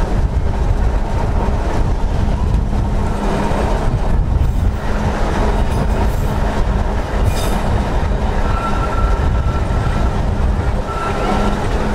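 Victorian electric tramcar of the Snaefell Mountain Railway running along its track: a steady rumble of wheels on rail. Near the end a short, thin wheel squeal comes twice as the car runs into a curve.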